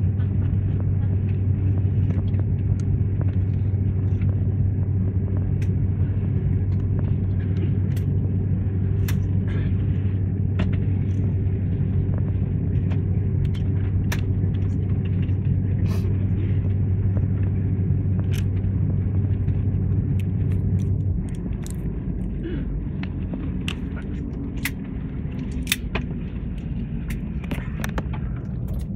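Jet airliner cabin noise with the engines at idle: a steady low drone that drops away about two-thirds of the way through, followed by a slowly falling whine as the engines spool down. Scattered sharp clicks come and go, more of them near the end.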